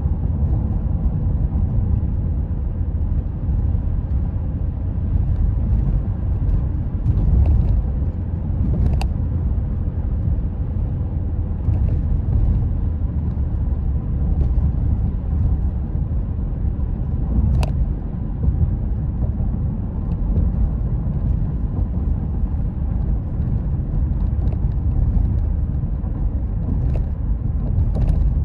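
Car driving along a paved road: a steady low rumble of tyres and engine. A short tick sounds twice.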